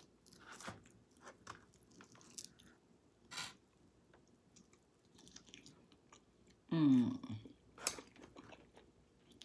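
Close-miked eating sounds: chewing with scattered wet smacks and clicks of the mouth. About seven seconds in comes a brief voiced sound that falls in pitch.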